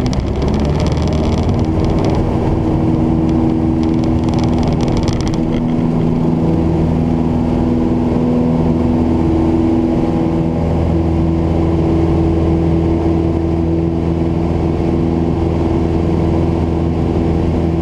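Piper Cherokee's engine and propeller running steadily at takeoff power, heard inside the cabin. A rattling rumble of the wheels on the runway stops about five seconds in as the plane lifts off, leaving the steady engine drone.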